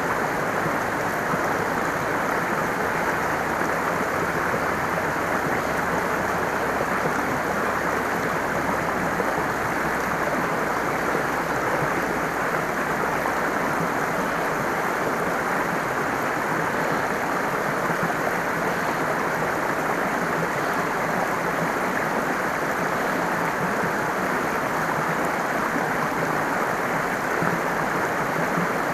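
Stream water running and splashing steadily, an even rushing sound with no pauses.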